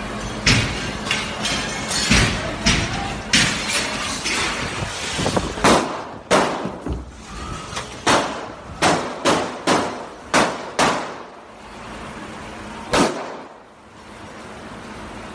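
A long string of gunshots, roughly twenty sharp reports about half a second to a second apart, thinning out toward the middle, with a single last shot about thirteen seconds in.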